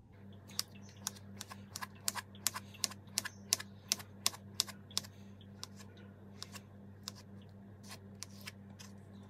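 Kitchen knife slicing through a soft avocado and clicking sharply against a plastic cutting board, about four quick cuts a second at first, then sparser. A low steady hum runs underneath.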